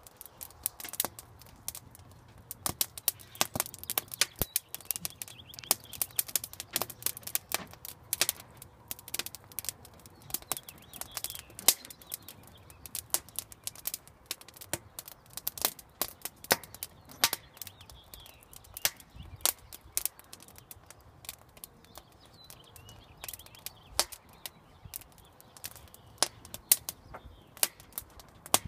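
Wood fire crackling in a mesh-screened fire pit: a steady stream of irregular sharp pops and snaps, several a second, with a few louder cracks.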